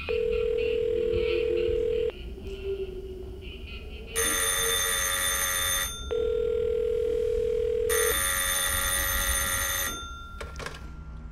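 Old-style telephone ringing. A steady two-second tone alternates with the ring of the telephone's bell, twice each. A couple of sharp clicks come near the end.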